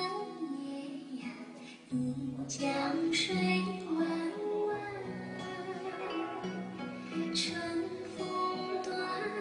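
Music with a singing voice over sustained melodic notes and a bass line. The bass is absent at the start and comes in about two seconds in.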